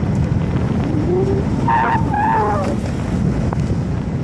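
Steady low rumble of a charter boat's engine and the water around it. A brief high-pitched, wavering cry rises over it about two seconds in.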